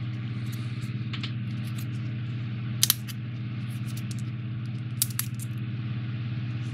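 Small sharp clicks and taps as the waste bits are pushed out of a die-cut cardboard rat-line piece: a pair of clicks about three seconds in and two more about five seconds in, with fainter ticks between. A steady low hum runs under it all.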